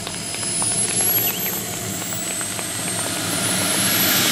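Small RC model turbine engine of a Jet Legend CT-114 Tutor scale jet whining at a high pitch, then spooling up: the whine rises in pitch and grows louder from about a second in as the throttle is advanced on the grass runway.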